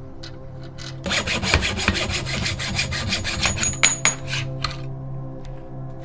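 Hacksaw cutting through a bicycle fork's steerer tube clamped in a saw guide: a run of rapid, even back-and-forth strokes starting about a second in and stopping shortly before the five-second mark, over background music.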